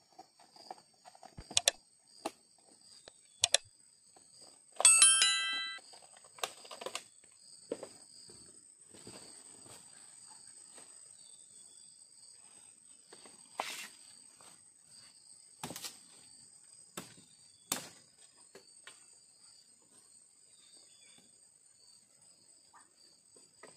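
Scattered clicks and knocks from a fishing rod and spinning reel being handled, over a steady high buzz of forest insects. A brief bell-like ringing about five seconds in is the loudest sound.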